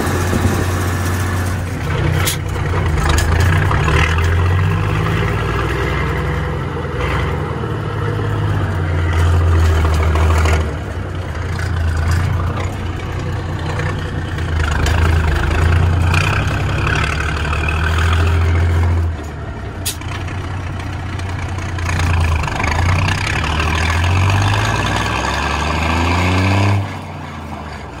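Straight-piped, non-turbo Cummins NHC250 855 inline-six diesel in an AM General M813A1 5-ton truck running loud, its level swelling and easing several times. Near the end it briefly drops back with a falling pitch.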